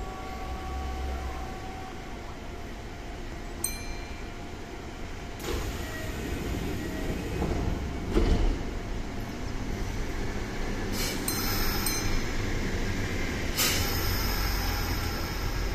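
Kintetsu 1026-series electric train standing at a station platform, humming steadily, with a few short hissing and clicking sounds during the stop.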